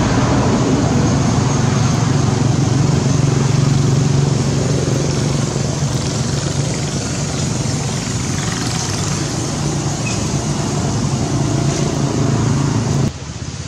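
A motor engine running steadily with a low hum, which drops away suddenly near the end.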